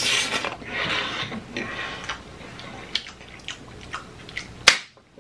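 Close-miked chewing of a mouthful of creamy penne pasta: wet mouth sounds and small smacking clicks, with airy, hissing breaths, and one sharp click near the end.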